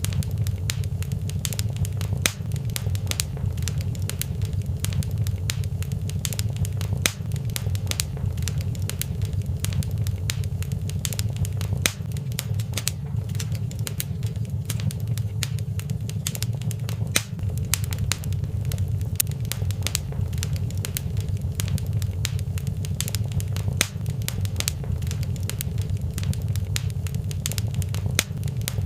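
Wood fire crackling in a fireplace, with frequent irregular sharp pops and snaps over a steady low rumble of the burning.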